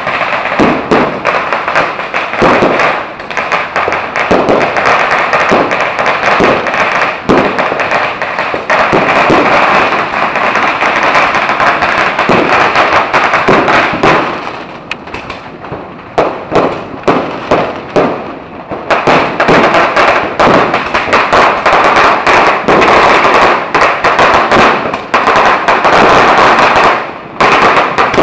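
Strings of firecrackers going off in a loud, dense crackle of rapid bangs, easing briefly about halfway through and again near the end.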